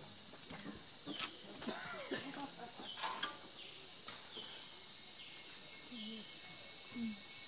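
Steady high-pitched drone of rainforest insects, with a few short falling chirps over it.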